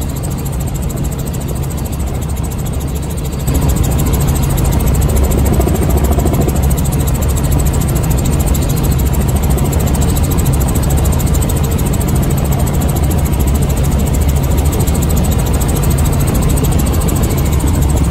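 Helicopter cabin noise: the steady low drone of the engine and rotor, with a throbbing hum at the bottom. It steps up in loudness about three and a half seconds in and then holds steady.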